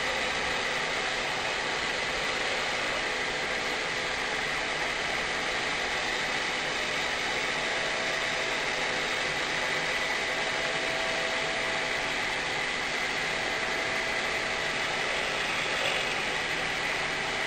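CNC router spindle running steadily while milling a mold, a constant cutting noise with a steady high whine.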